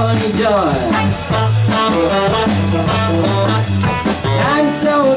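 A live blues band playing: electric guitar, tenor saxophone, bass guitar and drums, over a steady, regular bass line.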